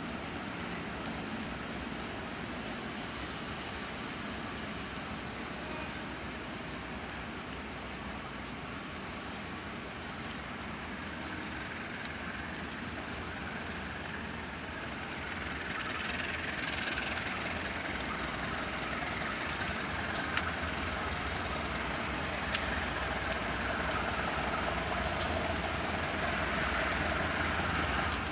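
A JR 205 series electric commuter train approaching, its running noise growing steadily louder over the second half, with a few sharp clicks near the end.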